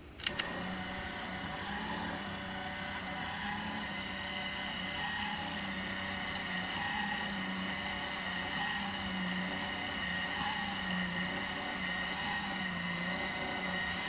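Casdon toy Hoover Electron 1100 washing machine: two sharp clicks, then its small battery-powered electric motor starts and runs steadily with a high whine, the drum-driving hum wavering slowly and regularly. The owner thinks the motor could do with replacing.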